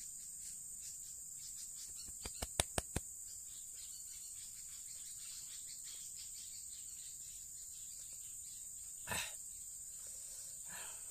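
Steady high-pitched insect chirring, with a quick run of about five sharp clicks two to three seconds in and a brief soft burst of noise near the end.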